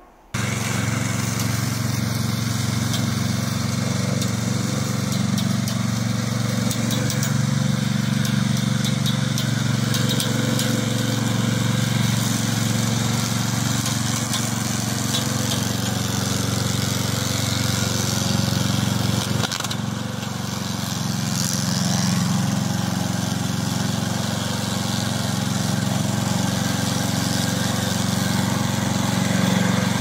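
Engine of a tracked remote-control lawn mower running steadily under load while the mower cuts through tall dry grass.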